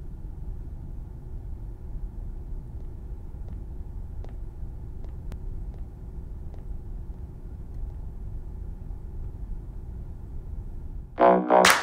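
A steady low rumble with a few faint clicks. About eleven seconds in, a louder keyboard-led music track starts.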